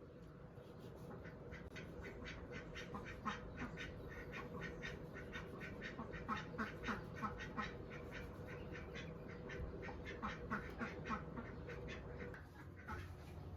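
Birds calling in many short calls in quick succession, thickest through the middle, over a steady hum that stops shortly before the end.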